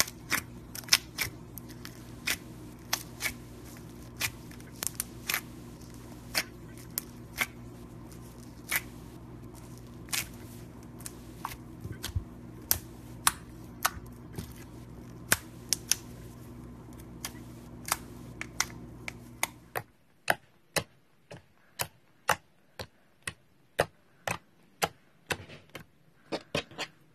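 Slime being squeezed and pressed by fingers, giving sharp clicks and pops about one or two a second. First it is blue bead-filled slime in a plastic cup, over a steady low hum. About twenty seconds in the hum stops and the clicks come from clear green slime.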